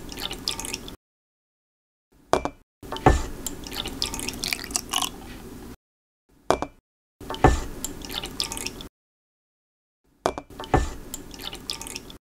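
Pancake batter poured and dripping from a spoon into small squeeze bottles, heard in four or five separate spells with dead silence between them. Each spell opens with a short knock, then runs on as liquid pouring and dripping.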